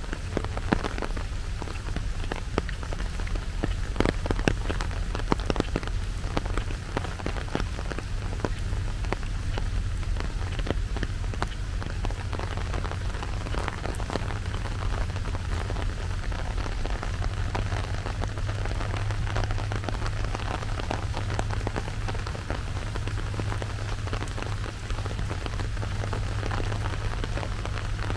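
Steady rain falling, with many close, sharp drop taps over an even hiss and a steady low rumble underneath.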